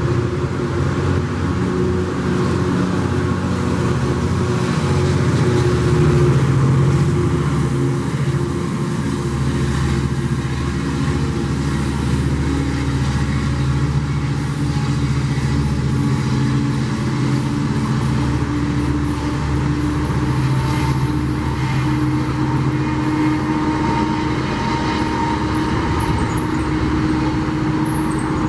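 A Metrolink commuter train of bi-level coaches running past, its EMD F59PHR diesel locomotive's engine working with a steady, pitched drone over a low rumble. It is loudest a few seconds in.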